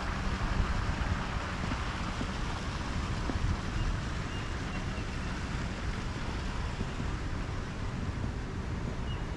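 Wind buffeting the microphone over a steady outdoor hiss, with faint high chirps about halfway through.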